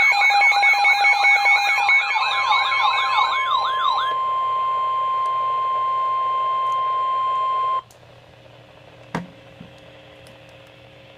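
Emergency alert tones: a loud electronic warble sweeping up and down about four times a second over steady tones. About four seconds in it gives way to a single steady tone near 1 kHz, like the NOAA Weather Radio warning alarm tone, which cuts off suddenly about eight seconds in, leaving a faint hum and a click.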